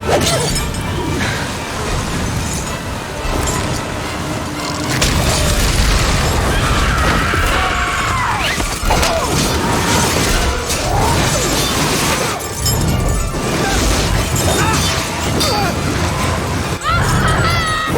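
Film action soundtrack: dramatic music mixed with a heavy, continuous rumble and crashes, with shouted voices breaking through, most clearly near the end.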